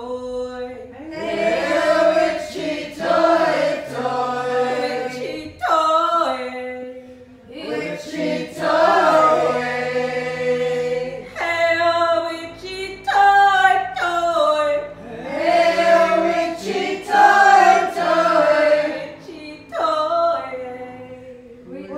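A group of voices singing together, in phrases of a few seconds that swell and fall away.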